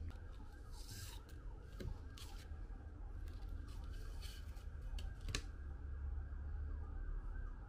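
Clear plastic blister sheath crinkling and clicking as a Japanese ryoba saw is slid out of it and handled, a handful of short rustles and scrapes with one sharper click about five seconds in.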